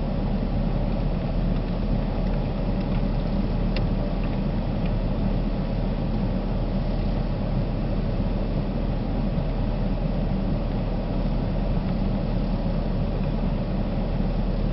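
Steady low hum and rumble of an idling vehicle engine heard from inside the cabin, with one faint click about four seconds in.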